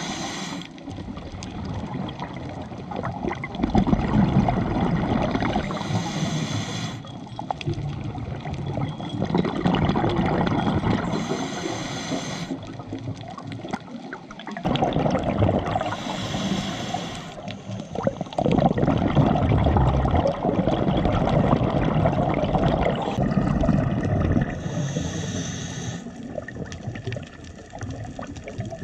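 Underwater sound of a scuba diver breathing through a regulator: a short rush of exhaled bubbles every five or so seconds over a muffled rumble of moving water.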